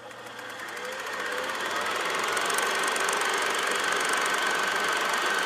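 Steady machine-like hum and hiss with a thin, steady high whine, fading in over the first couple of seconds.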